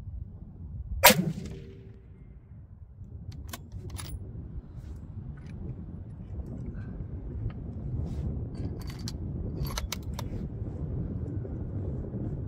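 A single shot from a 6.5 PRC Bergara B-14 HMR bolt-action rifle about a second in, loud and sharp with a short echo. It is followed by a series of light metallic clicks as the bolt is worked, with a steady low wind rumble on the microphone.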